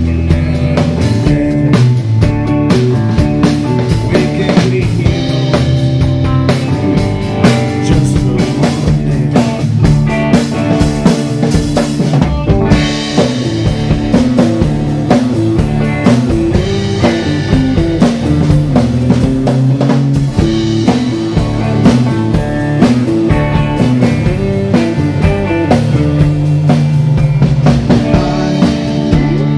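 A live rock band playing, with a drum kit keeping a steady beat under guitar and bass guitar.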